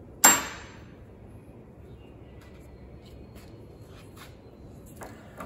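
A single sudden hissing burst about a quarter second in, fading within half a second. It is followed by a few faint clicks and taps of hands working grease into the tractor's lift-link joint.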